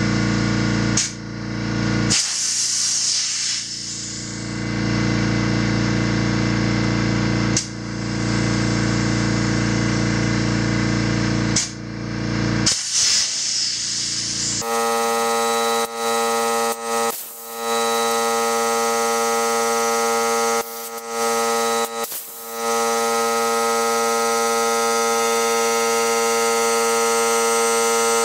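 Air compressor running steadily while a dirt-bike inner tube is repeatedly inflated and deflated to seat it in the tyre. Two bursts of hissing air come, one a couple of seconds in and one about halfway. The hum changes abruptly about halfway through.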